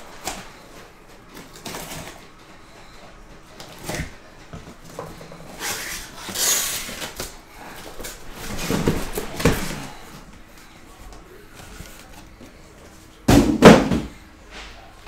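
Cardboard boxes being handled in an opened shipping case: sealed card boxes slide and scrape against the cardboard with a papery rustle, with scattered knocks, and a couple of loud thumps near the end as a box is set down or knocked against the others.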